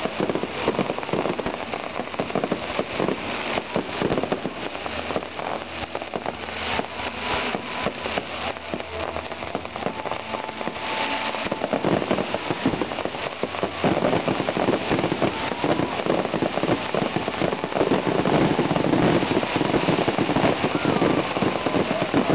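Fireworks display: dense, continuous crackling and popping of many overlapping bursts, growing louder in the second half.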